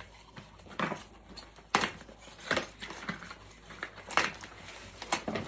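Gift packaging being handled and opened: crinkling and rustling with about five short, sharp clicks or knocks spread through.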